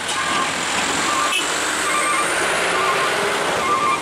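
Hino diesel truck climbing a steep gravel grade under load: steady engine and tyre noise, with a faint high whine rising around the middle. Short tones repeat through it.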